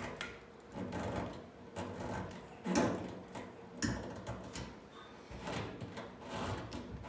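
Rubbing and handling sounds as a rubber fuel hose is pushed and worked down over a fitting on an auxiliary fuel tank, with a couple of sharper knocks about three and four seconds in.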